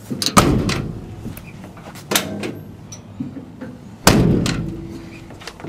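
Steel door of a 1953 Chevrolet panel truck being slammed shut three times, about two seconds apart, each bang followed by a short metallic ring.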